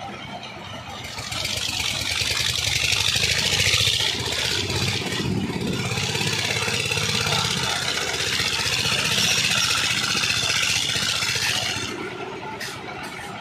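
Engines of two concrete mixers running steadily, with a loud hiss over them from about a second in until near the end.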